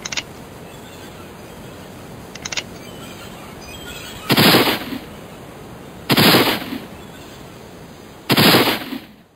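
Three loud gunshots about two seconds apart, each dying away within about half a second, over a steady hiss. Two faint sharp clicks come before them.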